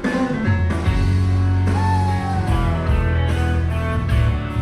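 Intro music of a karaoke song, rock-style with a steady bass line and guitar. One long note slides down about two seconds in.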